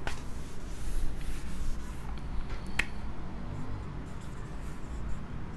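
Marker writing and rubbing on a whiteboard: faint scratchy strokes, with two sharp taps, one at the start and one about three seconds in.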